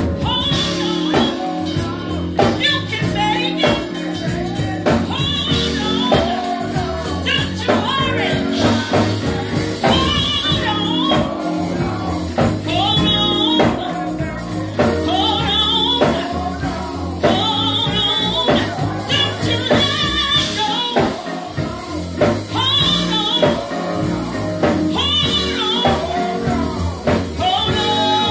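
Gospel music: a woman singing through a microphone and loudspeaker in sung phrases with vibrato, over steady instrumental accompaniment.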